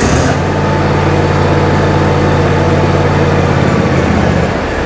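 2006 John Deere X320 riding mower's engine running steadily just after starting, its note wavering and beginning to fade near the end as it starts to die. The mower won't stay running, which the owner puts down to an electrical fault.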